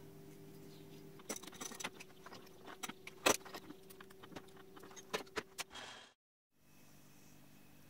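Metal tools clinking and tapping as a boring bar is set up in the boring head of a milling machine: a series of sharp, irregular clicks and knocks, the loudest about three seconds in, over a steady low hum. The sound fades out at about six seconds.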